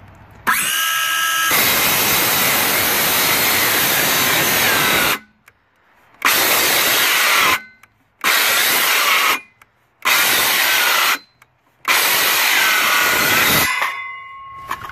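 Craftsman C3 19.2-volt 5½-inch cordless trim saw with an old, dull blade spinning up and cutting through an old pressure-treated 2x4. One run of about four seconds is followed by four shorter bursts of a second or two, each stopping abruptly, as the saw keeps cutting out mid-cut. The motor winds down at the end.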